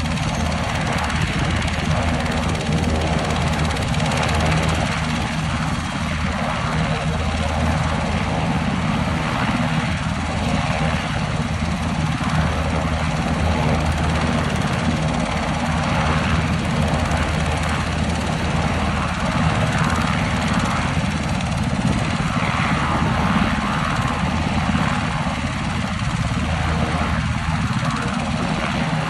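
UH-60 Black Hawk helicopter running on the ground with its main rotor turning: a steady, loud turbine-and-rotor drone with a low throb.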